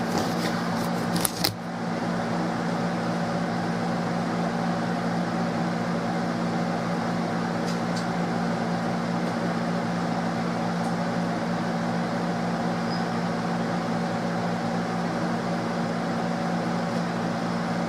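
Steady mechanical hum with a low drone, like a fan or motor running nearby. A few clicks and knocks in the first second and a half as the camera is handled and set down on the bench, and a faint click about eight seconds in.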